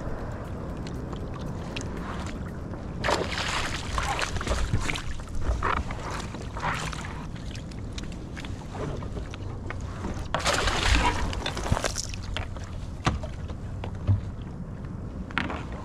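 Water splashing in several bursts as a hooked California halibut thrashes at the surface beside a kayak, over a steady rumble of wind on the microphone.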